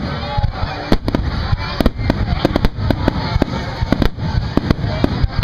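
Aerial fireworks shells bursting in quick succession, a rapid, irregular run of loud bangs and pops.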